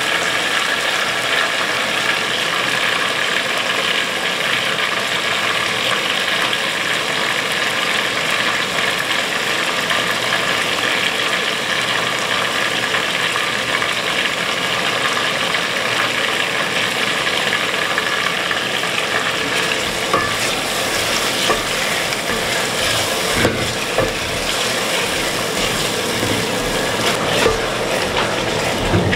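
Sliced tomatoes sizzling and frying in an aluminium pot, a steady hiss. In the last third a wooden spoon stirs them, knocking a few times against the pot.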